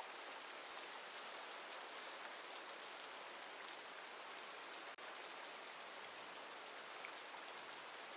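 Steady rainfall: an even hiss of rain with scattered single drops ticking through it, broken by a momentary dropout about five seconds in.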